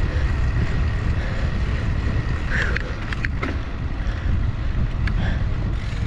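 Wind buffeting the microphone of a cyclist's camera while riding, a steady low rumble, with a few short clicks around the middle.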